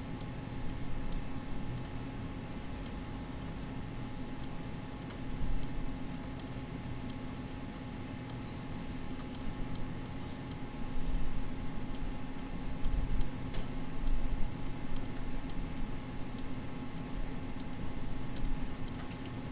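Computer mouse clicking, many short irregular clicks while spline vertices are selected and dragged, over a steady low hum.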